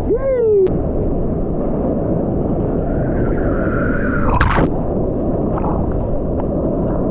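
Surf water churning and rushing over a camera dunked at and under the wave surface: a loud, steady rumbling wash. A short pitched tone slides up and down at the very start, and a sharper splash-like burst comes just past the middle.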